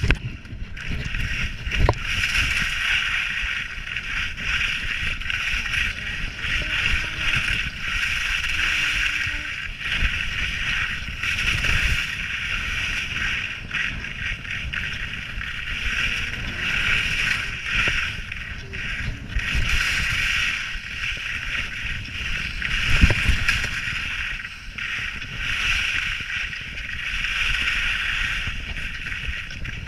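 Skis scraping over icy, hard-packed snow, the hiss swelling and fading with each turn through the moguls, over a low rumble of wind on the microphone. A few thumps break in, the loudest about 23 seconds in.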